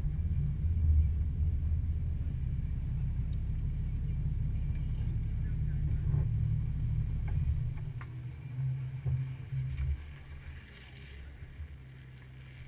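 Wind buffeting the camera's microphone: a low, uneven rumble that eases off about eight seconds in, then returns in a few short gusts.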